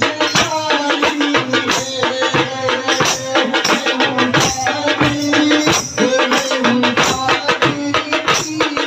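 Large drums beaten with sticks in a fast, dense rhythm, with a wavering melody line above them.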